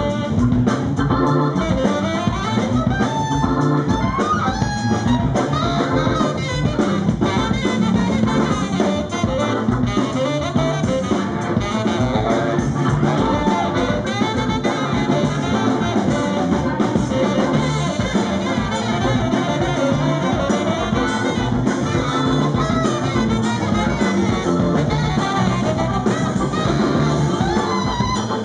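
Live band playing an instrumental break: a tenor saxophone solo over electric guitar and drum kit.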